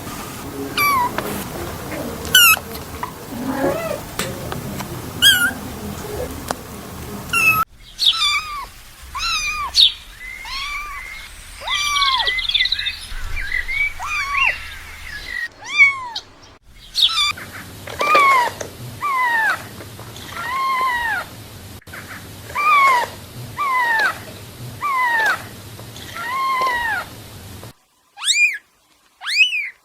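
Kittens meowing over and over: short, high-pitched cries that rise and fall, about one a second. The background changes abruptly a few times between cries.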